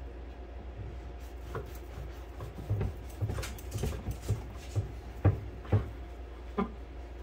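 Knife cutting a loaf of Italian bread into cubes on a board: about a dozen irregular soft knocks, roughly two a second, starting about a second and a half in.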